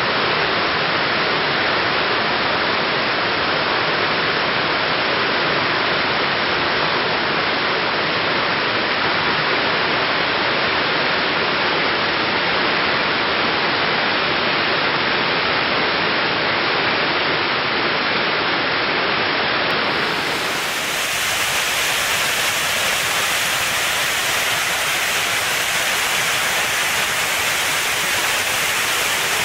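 Waterfall: a steady, loud rush of falling water. About two-thirds through, the rush turns brighter and hissier.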